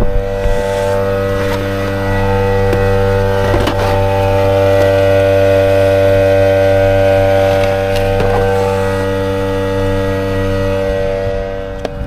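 A machine running at a steady speed: a loud, even, low-pitched hum that eases off near the end.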